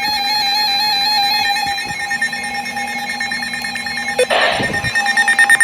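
Several NOAA weather radios sounding their electronic alert alarms at once, overlapping steady and stepping beeps in different pitches, the signal of an incoming warning. A click and a short burst of noise come about four seconds in, and a fast pulsing beep near the end.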